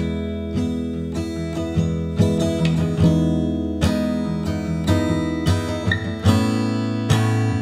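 Background music: acoustic guitar strumming chords at a steady pace.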